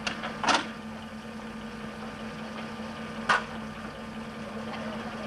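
Two sharp clunks from the Land Rover Series 2A's door being opened and handled, one about half a second in and another about three seconds later, over a steady low hum.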